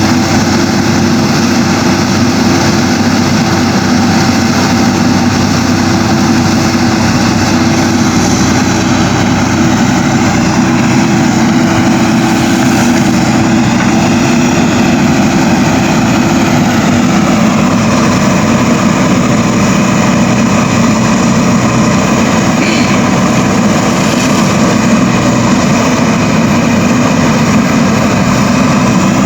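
Backhoe loader's diesel engine running steadily under digging load, a constant low hum.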